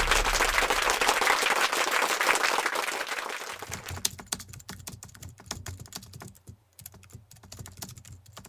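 Computer keyboard typing sound effect: a fast run of key clicks, dense and louder at first, thinning out into sparser, quieter clicks from about halfway through.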